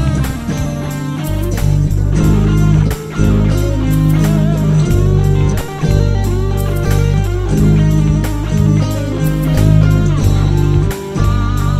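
Instrumental break of a Spanish rock ballad, with guitars playing over a steady bass line and no singing.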